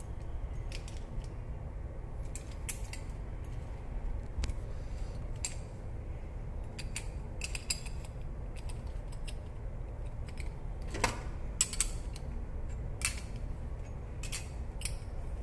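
Irregular metallic clicks and clinks from a copper-pipe swaging tool and its wing-nut clamp bar being handled and fitted onto a copper tube, over a steady low hum.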